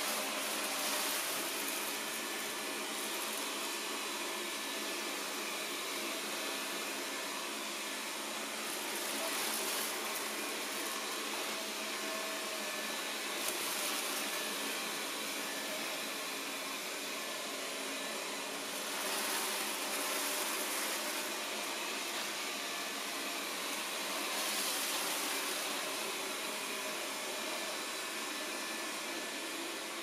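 Xiaomi Mi Robot Vacuum Cleaner running, its suction fan and brushes whirring steadily as it sweeps up scattered grains on a laminate floor. The hiss grows louder and softer every few seconds as it moves about.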